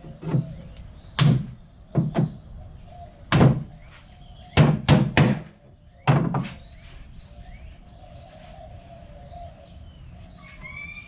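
Hammer blows on pallet wood and its bent nails, about eight irregular strikes over the first six seconds, some in quick pairs, then the hammering stops. A bird chirps briefly near the end.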